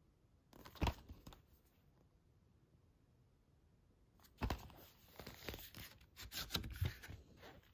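Handling noise from a Blu-ray case: a single knock about a second in, then a few seconds of scraping, clicking and rustling as the cardboard slipcover is slid off the plastic case.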